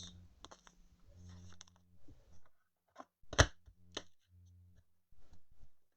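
Trading cards and their packaging being handled: scattered light clicks and rustles, with one sharp tap about three and a half seconds in.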